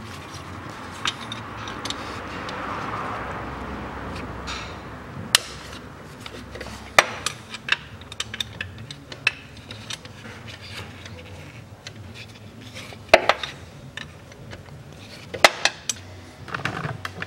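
A 13 mm wrench and other hand tools clinking on metal as the timing-belt tensioner pulley bolt is undone: scattered sharp metallic clicks and clinks, irregularly spaced, over a soft rustling hiss during the first few seconds.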